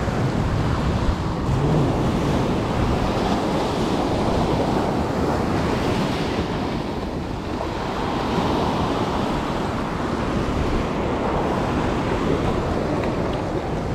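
Ocean surf breaking and washing over a rocky shore, a steady rushing noise, with wind buffeting the microphone.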